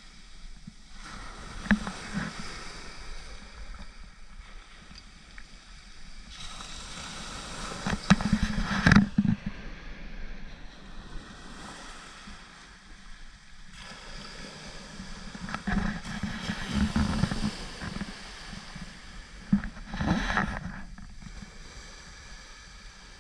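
Small waves breaking and washing up a shingle beach, swelling and falling back every few seconds, the loudest surge about nine seconds in, with wind on the microphone.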